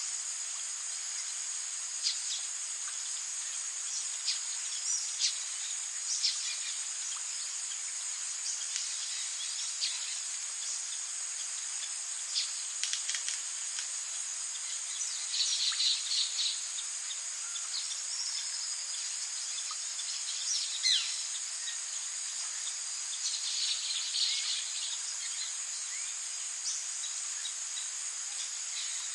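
Rainforest insects trilling in a steady high drone, with scattered short bird chirps and whistles over it and two brief busier bursts of calls partway through.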